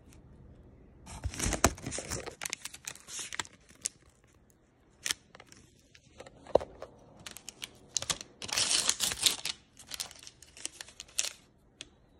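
Paper wrapper of a sterile cotton-tipped applicator being torn open and crinkled by hand, in two bouts of rustling and tearing: one about a second in and a longer one past the middle, with a few single crackles between.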